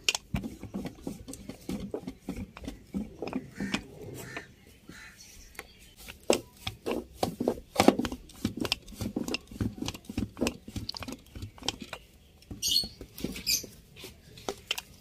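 Rolling pin rolling out paratha dough on a laminated tabletop: a steady run of irregular light knocks and taps as the pin rolls back and forth over the dough and board.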